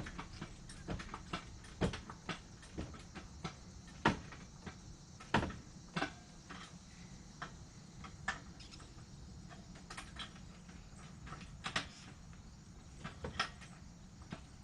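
Scattered, irregular clicks and knocks of hand tools and metal parts during work on a car's engine mount, thicker in the first half and sparser later.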